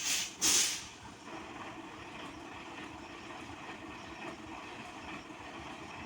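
Two short hisses of air released from a truck's air brakes, one right after the other at the very start, followed by the diesel truck's engine running steadily.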